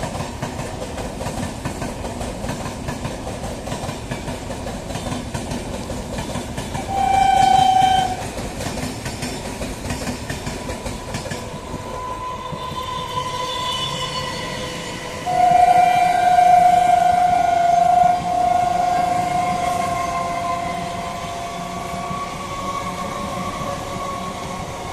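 Electric suburban local train (EMU) running past with a steady rolling clatter of wheels on rails. Its horn gives a short blast about seven seconds in, then a longer blast from about fifteen to twenty seconds.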